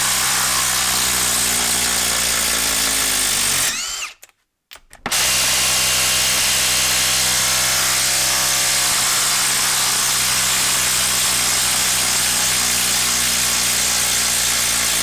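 Ryobi P239 brushless 18-volt impact driver hammering in reverse to back a 4.5-inch lag screw out of a wood stump: loud, steady rattling impacts that stop briefly about four seconds in, then carry on. Under this load the screw at first turns only very slowly, so the driver seems to just spin while it works it out.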